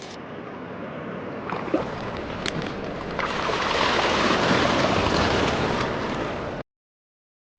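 Waves washing on a beach, swelling louder about three seconds in, with a few faint clicks, then cutting off suddenly to silence near the end.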